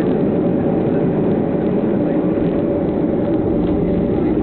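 Airliner cabin noise as the plane rolls along the runway after touchdown: a steady, loud low rumble of engines and wheels, with a thin steady hum running through it.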